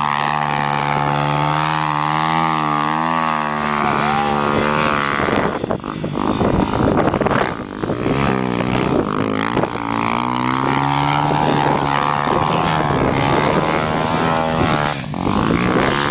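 Honda XR 250 Tornado trail motorcycle's single-cylinder four-stroke engine being ridden, held at steady revs for about five seconds, then revving up and down with a few brief throttle drops.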